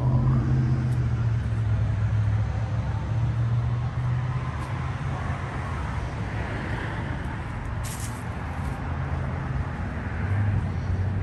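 Heavy dump truck's diesel engine idling with a steady low hum, and a short hiss about eight seconds in.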